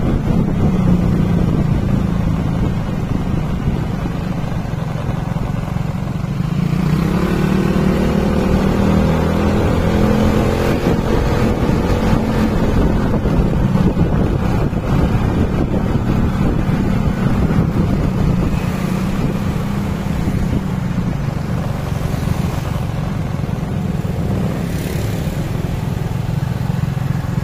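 Motorcycle engine running while riding along a street, a steady low hum mixed with wind and road noise; about seven seconds in the engine pitch rises as it picks up speed.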